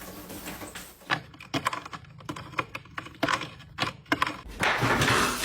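Irregular sharp clicks and taps, two or three a second, then a loud rushing noise near the end.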